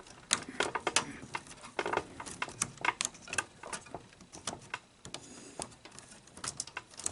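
Irregular small clicks, ticks and light knocks of wires and plastic parts being handled and pulled free inside a VCR chassis.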